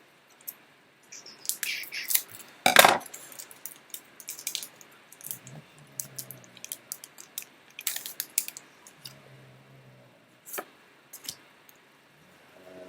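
Foil Pokémon TCG booster pack wrapper being torn open and handled, with irregular crinkles and clicks, the loudest a sharp rip about three seconds in. A dog snores softly in the background, three low snores a few seconds apart.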